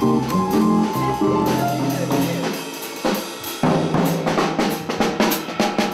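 Jazz combo playing: a line of pitched melody and bass notes, with drum-kit snare and cymbal strokes growing busier about halfway through.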